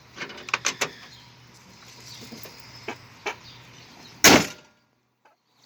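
A few light clicks and knocks, then a car's hood slammed shut with one loud bang about four seconds in.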